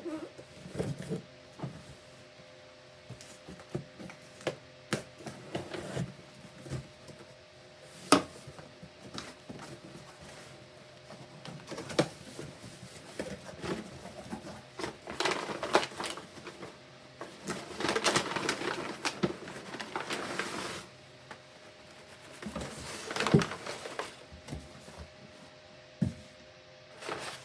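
A cardboard shipping box being handled and opened: scattered knocks and clicks, with a few longer stretches of tearing and rustling from packing tape and wrapping. A faint steady hum sits underneath.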